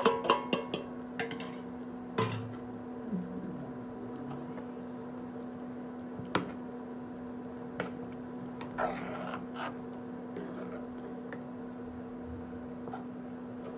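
Steel spatula knocking and scraping against a metal cooking pot while stirring spices into a thick chicken curry: a quick run of taps at the start, then occasional single clinks and short scrapes. A steady low hum runs underneath.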